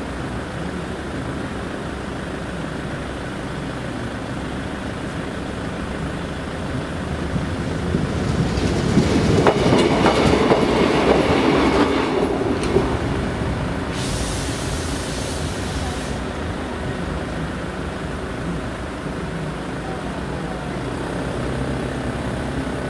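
Local passenger train passing over a level crossing, its wheels clattering over the rails. It builds from about 7 s and is loudest around 9 to 12 s, with a brief high-pitched noise from the train around 14 to 16 s, then fades to a steady background rumble.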